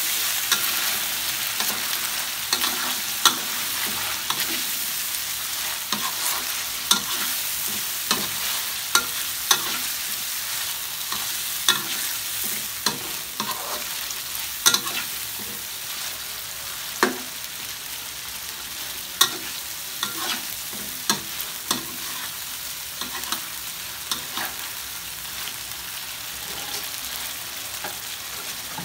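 Duck pieces in tomato sauce sizzling in a wok as a metal spatula stirs them: a steady sizzle with irregular sharp clicks and scrapes of the spatula against the pan, roughly once or twice a second.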